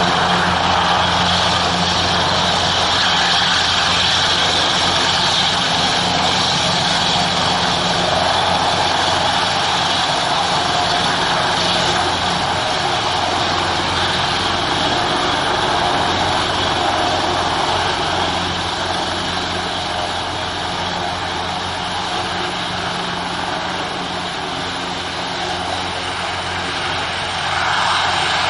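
Airbus H225M Super Cougar twin-turboshaft helicopter hovering low and setting down: a steady rotor thrum over turbine whine. It drops somewhat quieter in the second half and swells again near the end.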